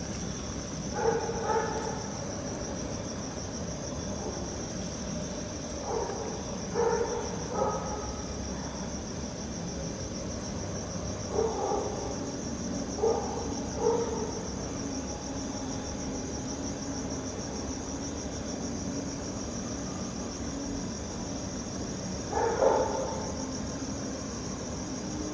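Crickets chirring steadily in one high, even drone, with brief louder calls in small clusters: about a second in, around six to eight seconds, around twelve to fourteen seconds, and near the end.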